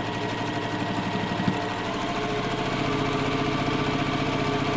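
Electric sewing machine stitching steadily, its motor hum and rapid needle strokes sewing a seam along the line of a paper foundation pattern, with one sharp click about a second and a half in.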